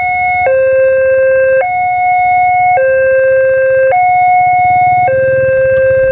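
Railway level-crossing warning alarm from the loudspeaker on the crossing signal, sounding a steady two-tone electronic signal that alternates low and high about every second, warning that a train is approaching and the barriers are down. A low rumble runs beneath it, stronger near the end.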